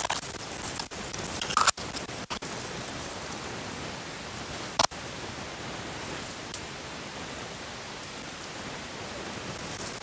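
Steady hiss with a few sharp knocks and scrapes, the loudest about five seconds in: handling noise from someone climbing a tree, hands and camera knocking against the trunk.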